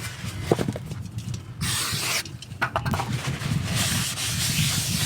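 A new brake disc's protective coating being rubbed and scraped off by hand, with scattered clicks and a short hiss about one and a half seconds in.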